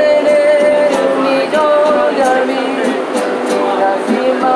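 A man singing a Spanish-language song in long held notes, accompanying himself on an acoustic guitar strummed in a steady rhythm.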